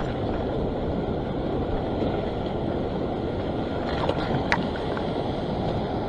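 Steady rush of wind on the microphone mixed with surf washing over a sandstone rock shelf, with two faint ticks about four seconds in.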